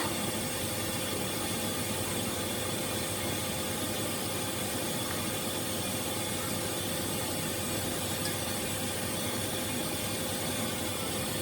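Steady running noise of CNC shop machinery: an even hiss with a constant hum held at one pitch, unchanging throughout.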